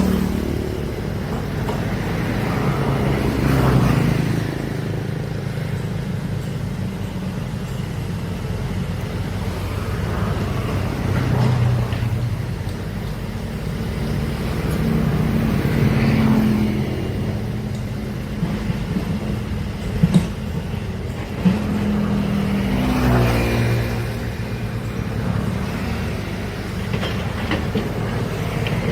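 Heavy equipment's large diesel engine running, swelling in revs every several seconds, with two sharp knocks about twenty seconds in.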